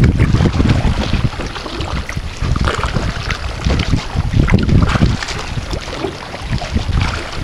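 Wind buffeting the microphone in an uneven low rumble that swells and fades, over the splash and trickle of kayak paddle strokes in the water.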